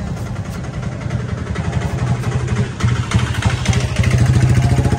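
An engine running close by at idle, a fast steady pulsing that grows louder about three seconds in.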